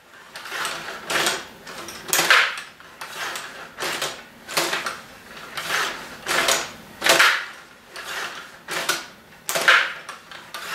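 Rod table hockey game being played: a string of sharp plastic clacks and short rattles, about one or two a second, as the control rods turn and slide the players and the puck is struck and passed.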